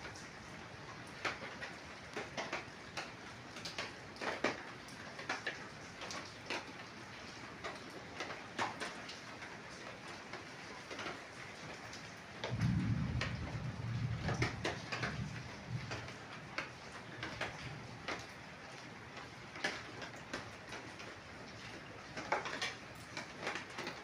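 Rain falling, a steady patter with many separate drops tapping and dripping on hard surfaces. A low sound lasts about three seconds near the middle.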